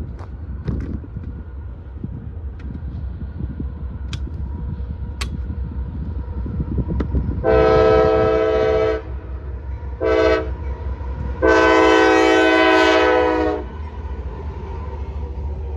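Diesel locomotive's air horn sounding three blasts, long, short, then long, over the steady low rumble of the approaching train.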